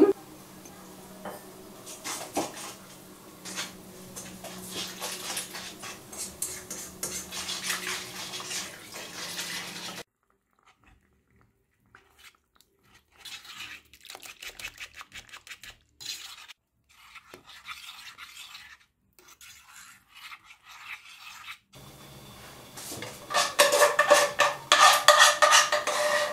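A metal whisk stirring and scraping around a pan of milk-based semolina pudding as it is brought to the boil, in runs of quick strokes that are much quieter through the middle. Near the end comes louder clanking and scraping as the thickened pudding is scraped from the pot into a stainless steel bowl.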